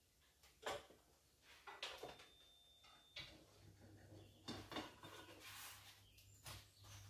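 Faint, scattered clinks and knocks of kitchen utensils against bowls and pans, about one every second, while batter is scooped out at the hob. A faint low hum starts about halfway through.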